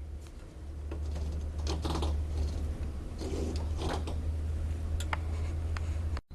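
Light clicks and small rattles of 3D printer parts being handled, coming irregularly a handful of times, over a steady low hum.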